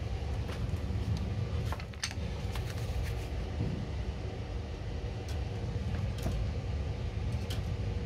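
Steady low mechanical hum with a few faint, irregularly spaced clicks, and no regular ignition spark ticking: the boiler's HT ignition lead is shorting out, so the igniter is not sparking.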